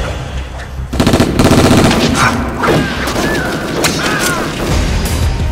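Rapid automatic gunfire, a burst of closely spaced shots starting about a second in, with music underneath.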